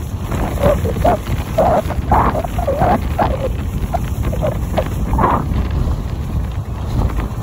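Wind buffeting a handheld phone's microphone while skiing downhill, a constant low rumble, with skis scraping over groomed snow in irregular short bursts as the skier turns.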